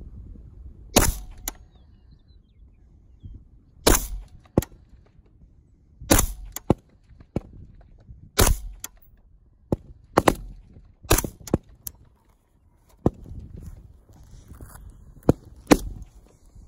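Single rifle shots from military service rifles on a firing range, fired one at a time at an unhurried pace: over a dozen sharp cracks, irregularly spaced a second or two apart, some loud and some fainter.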